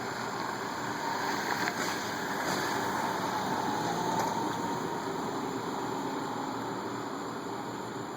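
Steady rushing noise of a thunderstorm, swelling slightly for a few seconds about a second in.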